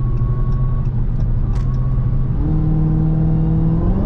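Dodge Charger Hellcat's supercharged V8 running under way, heard from inside the cabin; about two and a half seconds in its note jumps up and then climbs steadily as the car accelerates.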